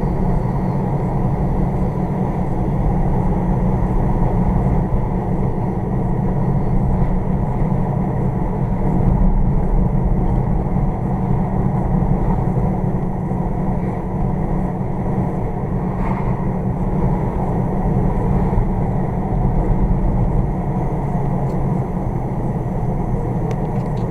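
Steady rumble of a car being driven, engine and road noise heard from inside, with no change in pace.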